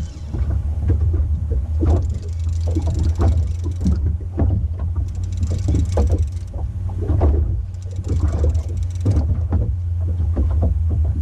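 Boat motor running steadily at trolling speed, a constant low hum, with short irregular noises over it.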